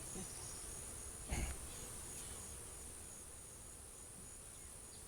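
Steady high-pitched chorus of insects, with a second, pulsing trill beneath it that fades out after about two seconds. There is one soft knock about a second and a half in.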